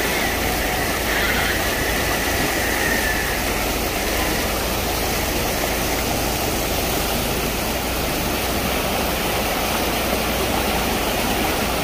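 A vehicle engine running steadily, heard as an even, unbroken noise with a faint whine in the first few seconds.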